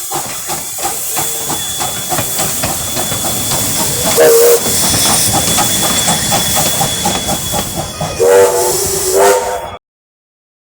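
Steam locomotive hissing and working with a quick, even beat, sounding its whistle in a short toot about four seconds in and two more short toots near the end. The sound cuts off suddenly just before the end.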